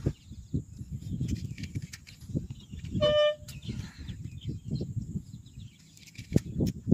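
Wind buffeting the microphone in uneven low rumbling gusts, with scattered light clicks. About three seconds in comes a brief steady-pitched tone lasting under half a second.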